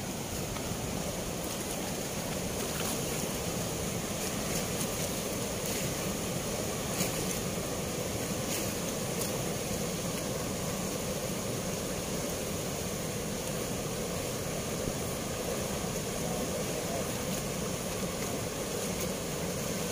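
Steady rush of fast, turbulent water pouring from the open sluice gates of a river weir.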